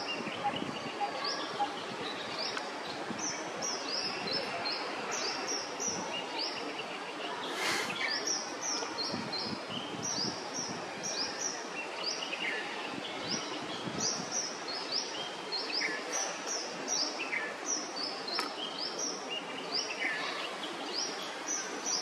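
Small birds chirping over and over, short high notes often in quick runs of two or three, over a steady outdoor hiss.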